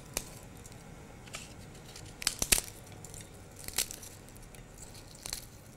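Crisp fried papdi wafers snapped by hand over a plate of chaat: about five short, sharp snaps, the loudest about two and a half seconds in.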